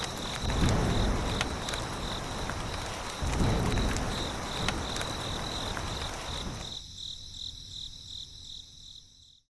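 Crickets chirping in an even, fast pulsing trill, with a few swells of rushing noise. The sound fades away about seven seconds in.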